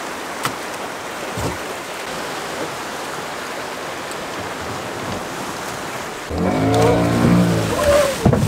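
Surf washing in the shallows, then about six seconds in the outboard motor of a small open boat comes in, running loud as the boat gets under way.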